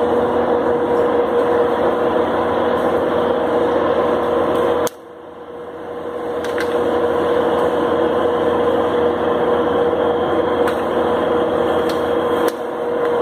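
Steady machine hum with a constant mid-pitched tone. About five seconds in a knock is followed by a sudden dip in the hum, which swells back over a couple of seconds; a second knock near the end brings a smaller dip.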